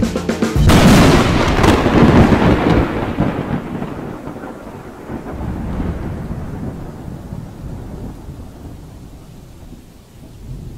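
Thunder: a loud crash about half a second in that rolls away into a long, fading low rumble, with the rumble building again near the end.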